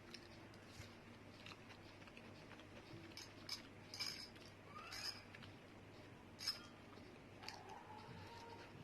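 Faint eating sounds of a person chewing spicy instant noodles: scattered soft clicks and small mouth noises, the strongest a few seconds in.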